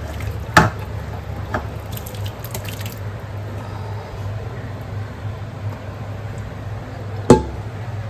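Cooked mutton and gravy being scraped with a ladle out of a pressure cooker into a metal pot: wet dripping and plopping with a few light metal clinks, then one sharp metal knock about seven seconds in. A steady low hum runs underneath.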